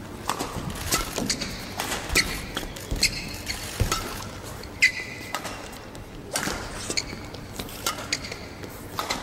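A string of irregular sharp knocks and thuds, several followed by short high squeaks. The loudest knock comes about five seconds in, with a squeak of about half a second after it.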